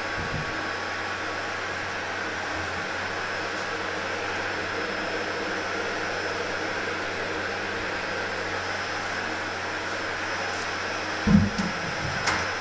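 Electric oil centrifuge running steadily, a motor hum with a constant high whine. A couple of low thumps come near the end.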